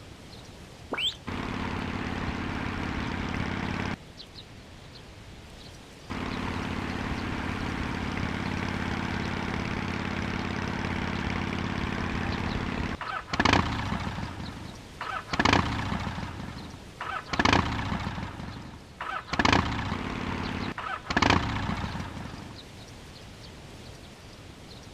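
Rooster making a steady, propeller-like droning sound in two stretches, the second lasting about seven seconds, followed by five loud calls about two seconds apart.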